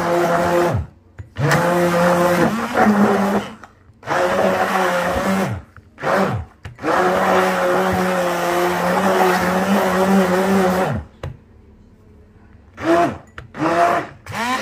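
Hand-held immersion blender whirring through guacamole in a glass bowl, switched on and off in several bursts; each time it stops the motor winds down in pitch, and the longest run lasts about four seconds.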